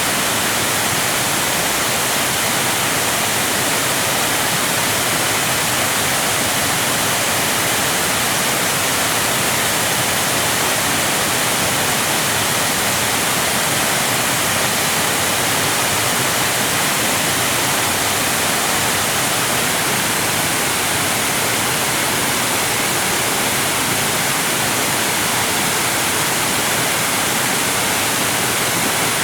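Waterfall: a steady, unchanging rush of falling water, an even hiss strongest in the high range with little low rumble.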